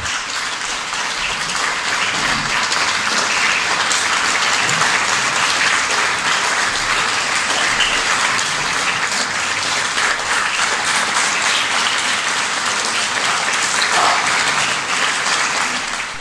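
Audience applauding steadily once the dance music stops, then dying away near the end.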